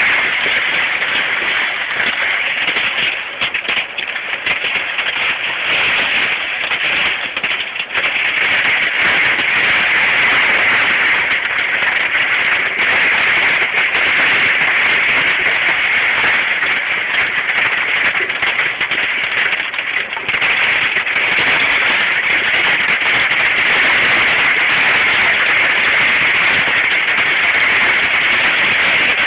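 Hail pelting down in a dense, continuous clatter of countless small impacts, loud and steady.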